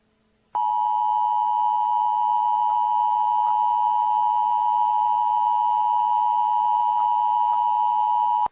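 Emergency Alert System attention signal, the two-tone alert tone heralding a tornado warning. Two close pitches sound together as one steady beep that starts about half a second in, holds for about eight seconds and cuts off sharply.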